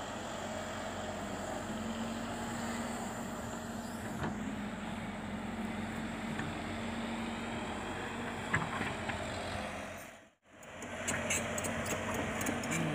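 JCB JS140 tracked excavator's diesel engine running steadily, a constant hum. The sound cuts out for a moment about ten seconds in, then comes back with a few sharp clicks near the end.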